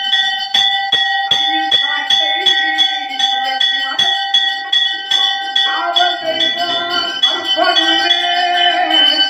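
Temple bell rung continuously during worship, struck about two to three times a second so its ringing tone never dies away. A voice joins over the ringing about six seconds in.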